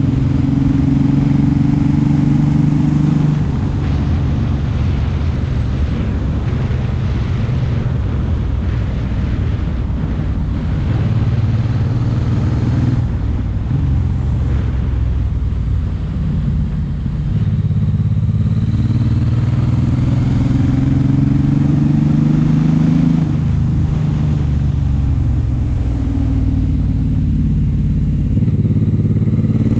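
Suzuki M109R's large V-twin engine running under way, its pitch stepping and swelling up and down as the bike accelerates and eases off, climbing most clearly a little past halfway. A steady rush of wind and road noise runs underneath.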